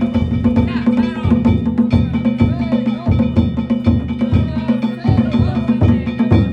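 Danjiri narimono: a taiko drum beaten in a driving rhythm with small bronze gongs ringing over it.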